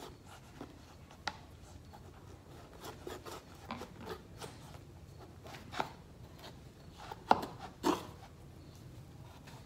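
Kitchen knife cutting through a hard raw winter squash: irregular crunching cracks and short scrapes as the blade is worked through the flesh. The sharpest crack comes about a second in, and two more come close together near the end.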